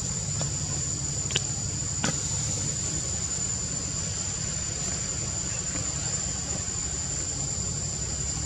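Insects calling in a steady, high-pitched drone over a low steady rumble, with a few sharp clicks in the first couple of seconds.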